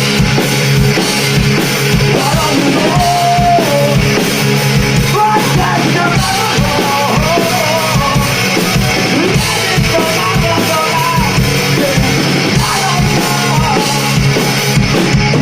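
A live alternative-metal band playing loud: distorted guitars and bass over a driving drum kit, with a sung lead line wavering above the band.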